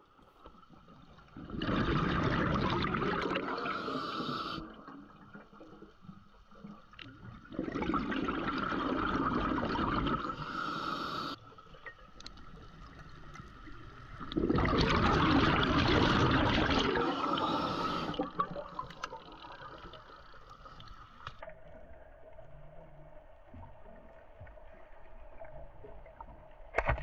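Underwater bubbling from a scuba diver's regulator exhaust: three long exhalations a few seconds apart, each a loud bubbling rush, with quieter breathing between. A faint steady hum comes in about two-thirds of the way through.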